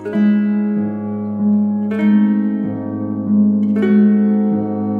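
Background music: plucked string notes struck in a new group about every two seconds, ringing over a steady low drone.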